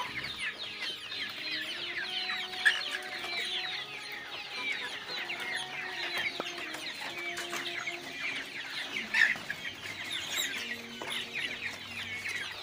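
A caged flock of young Joper (Jawa Super) chickens feeding, many birds cheeping and clucking over one another continuously.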